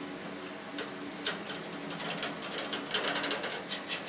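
Wire cheese harp drawn through firm cheese curd, its wires ticking and scratching against the stainless-steel vat in a quick run of small clicks. A faint low hum comes and goes in the background.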